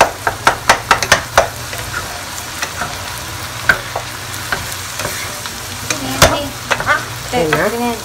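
Ground meat sizzling as it browns in a nonstick pot, stirred with a spatula that knocks and scrapes against the pot. A quick run of clacks comes in the first second and a half, then more scattered knocks over the steady sizzle.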